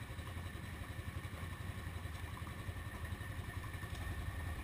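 Quad (ATV) engine idling steadily, with no revving.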